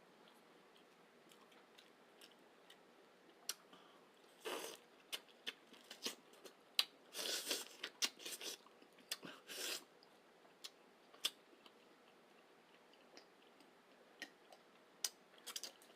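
Close-up eating sounds: chewing with wet mouth clicks and smacks, busiest between about four and ten seconds in, then scattered clicks.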